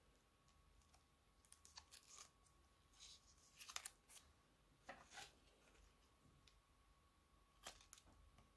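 Faint crinkling and rustling of a plastic piping bag filled with slime and small plastic dice as it is squeezed and handled, in short scattered bursts, with a sharp scissors snip at the bag's tip near the end.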